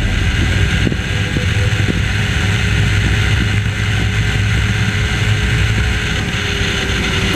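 Sport motorcycle engine running at a steady speed, a loud, even drone with no change in pitch.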